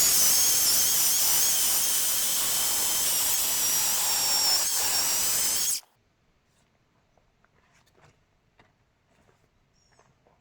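EGO cordless electric chainsaw running at full speed with a high whine, cutting into the log, then stopping abruptly about six seconds in. Faint clicks and rustles follow.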